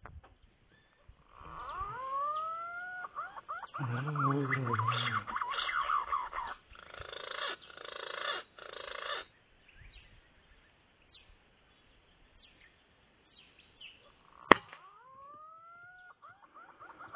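A single sharp air-rifle shot about three-quarters of the way through, the loudest sound here. Before and after it come bird calls with whistles that glide upward, and a stretch of dense chirping.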